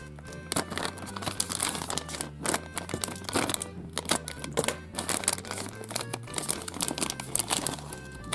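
Wrapper of a small sweet-box toy packet crinkling in quick, irregular crackles as it is handled and opened, over background music.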